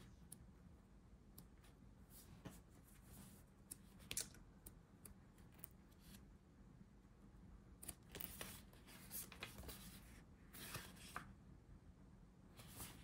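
Faint rustling and swishing of paper sticker-book pages being leafed through and handled, with a few soft taps; the swishes come more often and a little louder in the second half.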